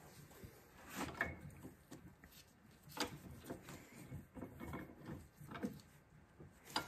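Faint handling noises of hydraulic cylinder parts: a few light knocks and rubbing of metal parts on a wooden bench and in a steel bench vise.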